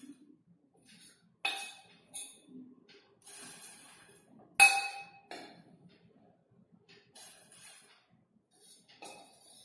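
Metal spoon scraping and knocking against a stainless steel bowl while scooping out soaked sago pearls, with two sharp ringing clinks, the louder one near the middle.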